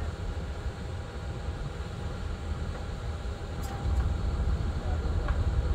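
Low, steady rumble of heavy equipment engines running, getting somewhat louder about four seconds in.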